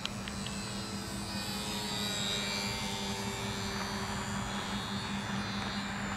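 HobbyZone Super Cub S RC airplane's electric motor and propeller whining in flight, the whine rising and falling in pitch as the plane passes, over a steady low hum.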